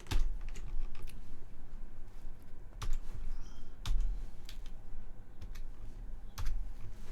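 Typing on a computer keyboard: uneven keystrokes with a few louder clicks.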